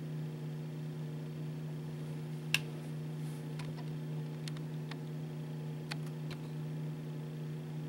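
A steady low hum, with a handful of short sharp ticks; the loudest comes about two and a half seconds in.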